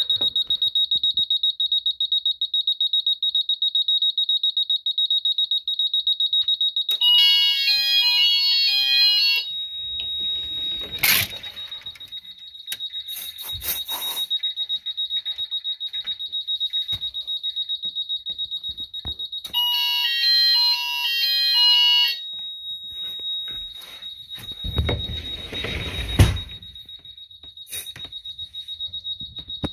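Fire alarm system in test: a smoke detector, set off by smoke-tester aerosol, sounds a high-pitched rapidly pulsing tone. Twice, for a couple of seconds each, an electronic fire alarm sounder joins with a pattern of stepped tones switching back and forth. Knocks and handling noises come in between, the sharpest one late on.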